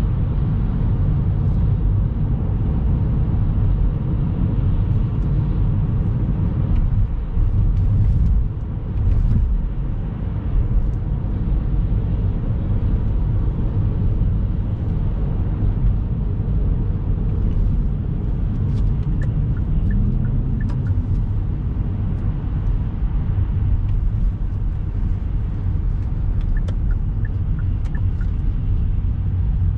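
Steady low rumble of a car on the move, heard from inside its cabin: tyre and engine noise.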